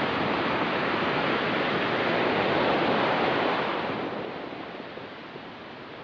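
Ocean surf washing onto a rocky beach, a steady rush of water that dies down about four seconds in.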